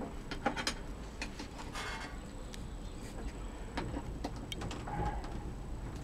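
Scattered light clicks and taps of metal parts being handled inside an oscilloscope chassis as a bolt is worked into place, with a short rasp about two seconds in.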